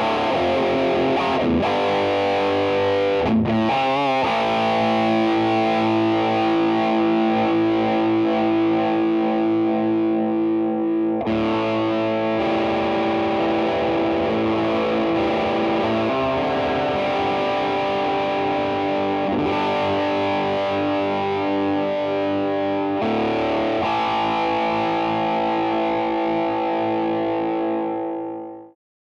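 Yamaha Studio Lord Les Paul copy on its vintage Japanese PAF bridge pickup, through a Vox AC30 with an overdrive pedal, playing sustained distorted chords that change every few seconds. It cuts off shortly before the end.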